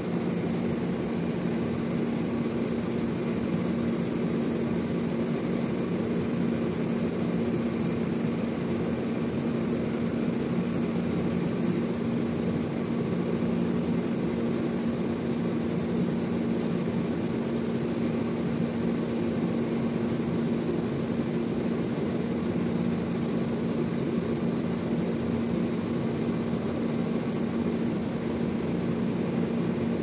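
Refrigeration unit of a stainless-steel commercial refrigerator running with a steady low hum and rush, unchanging throughout, as the cabinet cools down from warm.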